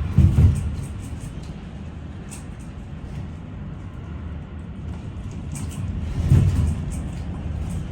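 Storm wind rumbling and buffeting, with two strong gusts, one just after the start and one about six seconds in, and faint patters of rain.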